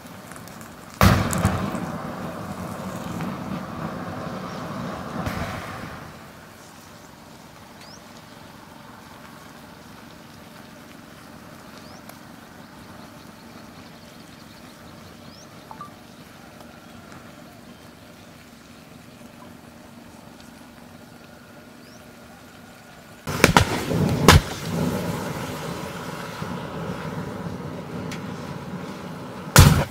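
Plastic disposable lighters bursting in a fire with sharp bangs: one about a second in, three in quick succession later on, and another near the end. The first bangs are each followed by several seconds of loud rushing noise, with the fire burning steadily in between.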